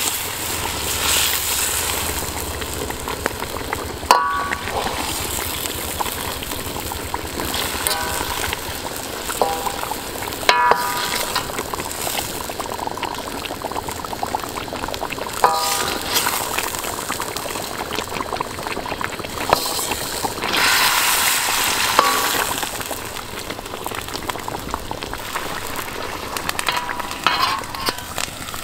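Marinade sizzling in a steel wok as a metal ladle scoops it up and pours it over a whole chicken. The ladle clinks against the wok several times, each clink with a short metallic ring.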